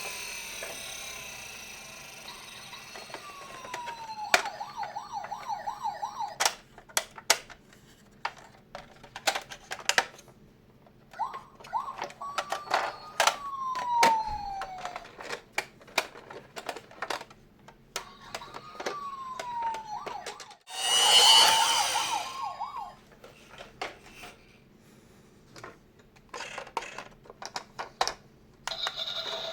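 Toy ambulance minicar's electronic siren sounding in short, separate spurts: falling wails and fast warbling tones, stopping and restarting. Many sharp clicks run between the spurts, and a louder noisy burst with a siren tone in it comes about two thirds of the way in.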